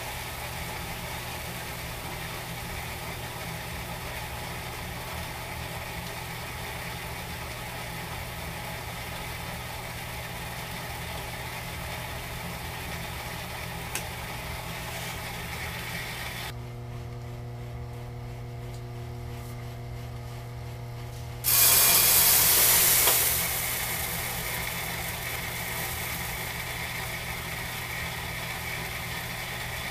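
Electric grain mill motor running with a steady hum under a rattling, grinding noise as malted barley is crushed. The grinding noise stops for a few seconds while the hum goes on, then a loud rush of grain comes in about three quarters of the way through and settles back to steady crushing.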